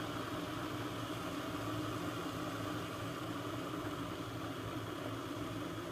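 Arçelik electric Turkish coffee machine running while it brews, a steady low hum with hiss.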